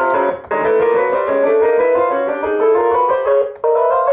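Vangoa VGD611 61-key digital piano playing its piano voice through its built-in speakers: a run of two-note intervals stepping up the keyboard. The sound cuts out briefly twice, and the player calls it glitchy with the speakers.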